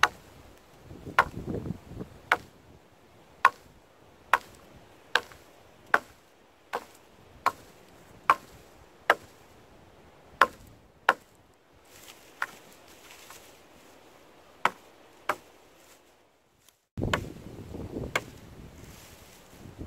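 Hatchet chopping wood: more than a dozen sharp, ringing strikes, about one a second, with a short pause in the middle. Near the end a low rumbling noise starts abruptly and one more strike lands.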